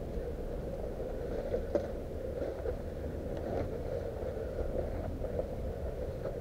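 Steady low rumble of handling and wind noise on a body-worn action camera as the player moves, with a few faint clicks.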